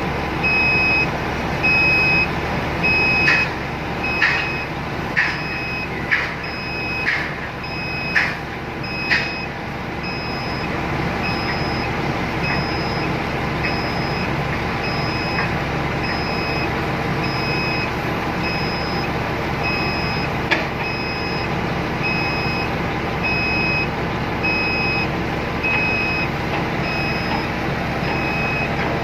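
Excavator's diesel engine running steadily while its warning alarm beeps about once a second. A series of about seven sharp metallic knocks, roughly one a second, comes a few seconds in, and a single knock follows later.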